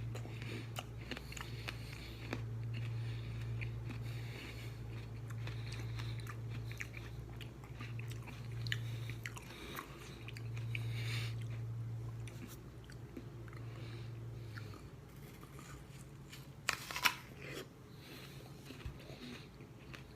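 Close-up biting and chewing of a cold, crisp red apple: irregular wet crunches throughout, with a sharper, louder crunch near the end. A steady low hum sits underneath and stops about three quarters of the way through.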